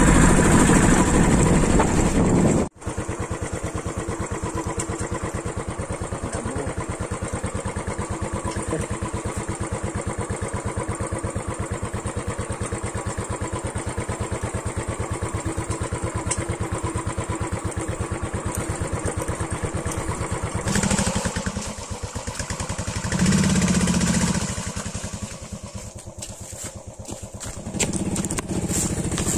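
Royal Enfield 500cc single-cylinder motorcycle engine running at low revs with a steady, rapid thump. It swells louder twice with throttle in the later part and eases off briefly after. A louder stretch at the start cuts off suddenly about three seconds in.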